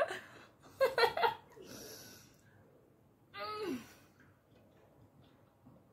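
A woman laughing briefly about a second in, then a breathy exhale, and a short vocal sound falling in pitch a little later.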